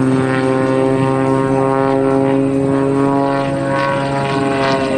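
Super Chipmunk aerobatic airplane's piston engine and propeller droning steadily in flight, the pitch easing down slightly near the end.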